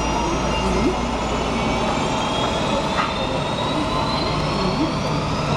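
Boeing 757-200 jet engine spooling up during start: a steady whine of several high tones, some slowly rising in pitch through the second half.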